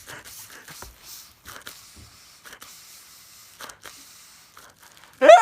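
Faint hissing with scattered soft clicks and rustles, then near the end a sudden loud scream that sweeps up in pitch and holds.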